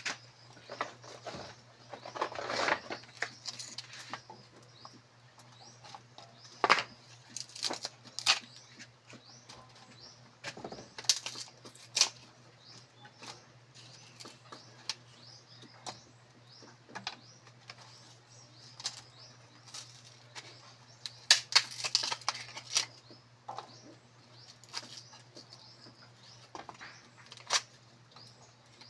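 Irregular sharp snaps and knocks of dry firewood sticks being handled and laid on a small wood cooking fire, over a steady low hum.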